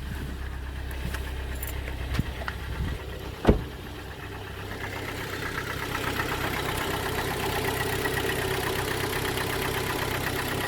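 Hyundai G4KD 2.0-litre four-cylinder petrol engine idling with a steady knock from the piston group. A sharp thump sounds about three and a half seconds in, and after it the engine comes through brighter, with a fast, even run of knocks.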